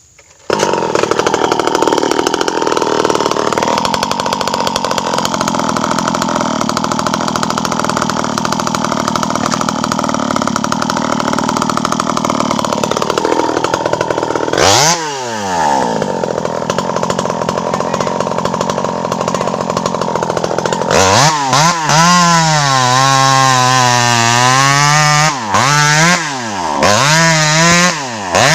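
A home-built 52cc two-stroke chainsaw comes in abruptly and runs steadily at high revs while felling a tree. Around fifteen seconds its revs drop and climb back. From about twenty-one seconds the engine speed rises and falls over and over.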